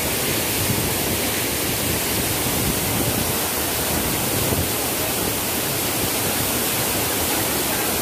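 Steady rush of wind and road noise inside the cab of a moving vehicle at speed.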